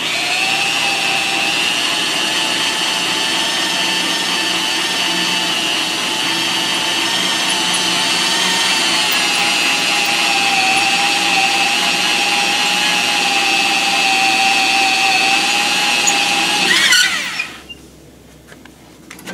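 Handheld electric drill driving a core drill through a valve guide bore in a 454 big-block Chevy cast-iron cylinder head, the motor running at a steady pitch under cutting load. About 17 seconds in it cuts off and spins down with a falling pitch.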